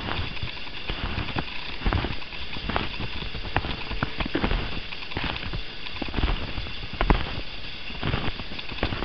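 Footsteps crunching through deep snow at a walking pace, about one step a second, with one sharper click about seven seconds in.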